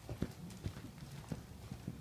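Hoofbeats of a reining horse loping on soft arena dirt: dull thuds in an uneven rhythm, the strongest about every half second.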